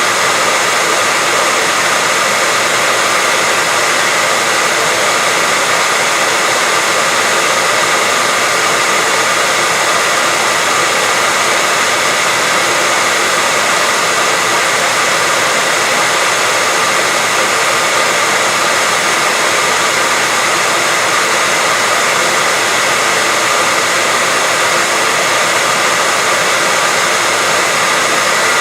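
Continuous white noise: an even, unchanging hiss weighted toward the high end, with a faint steady high tone running through it.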